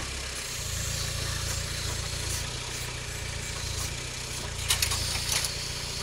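Engine of a small Vlčnovjan 4x4 garden tractor running steadily as it powers a rear-mounted backhoe digging soil, with a few sharp knocks about five seconds in.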